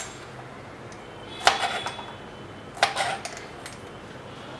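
Two sharp clicks about a second and a half apart as okra is handled and cut against a plastic vegetable-cutting board with a toothed blade.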